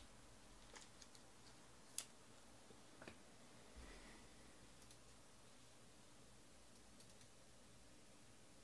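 Near silence with a few faint clicks and taps in the first four seconds, the sharpest about two seconds in, from trading cards and card packs being set down on a table.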